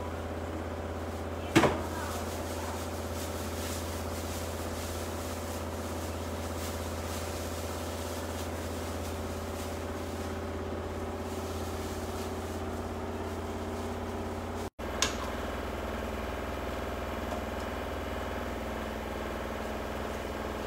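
Steady low mechanical hum with a few steady tones over it. A sharp knock comes about a second and a half in, and near three-quarters of the way through the sound cuts out for an instant and comes back with a click.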